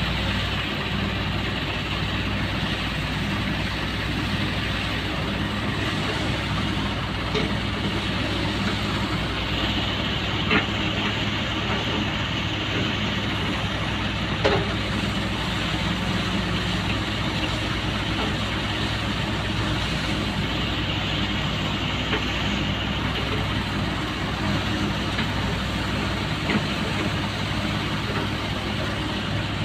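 Hyundai excavator's diesel engine running steadily, with a couple of brief sharp knocks about ten and fourteen seconds in.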